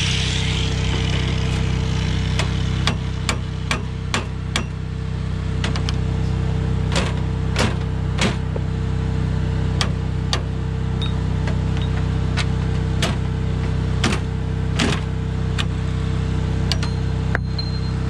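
Hammer striking the steel shaft and bearing of a hay elevator conveyor during a bearing change: sharp metal knocks, a quick run of them a few seconds in, then more spaced ones, over a steady engine hum.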